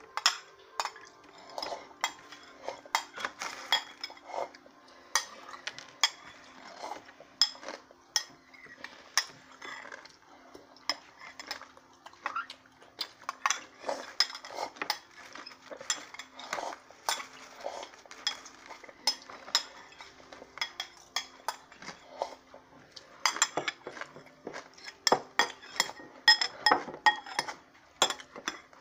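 Metal spoon clinking and scraping against a porcelain bowl in quick, irregular taps, with eating sounds in between and a faint steady hum underneath.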